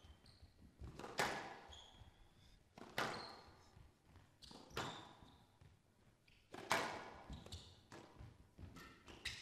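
Squash rally: the ball cracking off rackets and the court walls about every two seconds, each hit echoing in the hall, with softer knocks and short high squeaks in between.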